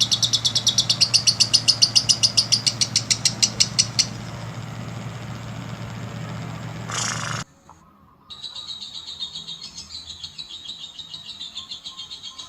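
Lovebird giving a long, fast, rapidly repeated chattering trill of about ten high chirps a second. The sound breaks off abruptly about seven seconds in, then a second long trill starts a second later.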